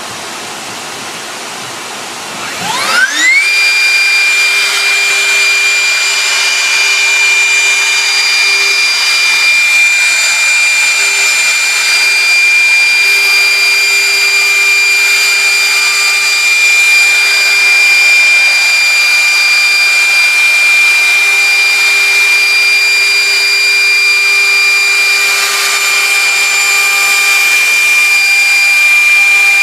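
CNC router spindle spinning up, a whine rising steeply in pitch about three seconds in, then running at speed with a steady high whine over a steady machine hiss.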